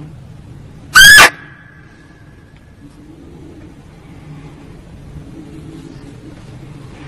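A muntjac (barking deer) call played as a hunting lure: one short, loud, high-pitched bark about a second in, with a faint tone trailing on for about a second after it, over a low, steady background hum.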